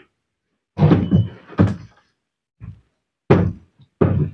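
Heavy metal parts of a 5 kg demolition breaker knocking together as they are fitted back into the housing: four sharp knocks, with a fainter one between them.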